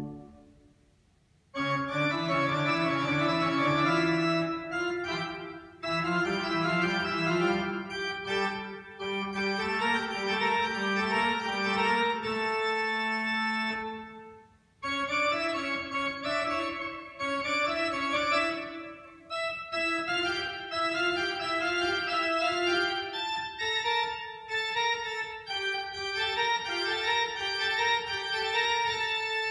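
Church organ played on the keyboards with both hands: held chords and notes that change every half second or so. A low chord dies away at the start, and after a second and a half of near quiet the playing begins. It breaks off briefly about halfway through, then carries on.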